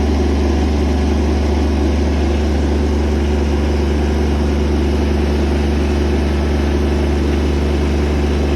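Engine of a log-handling machine with a swinging arm running loudly and steadily as it drives back.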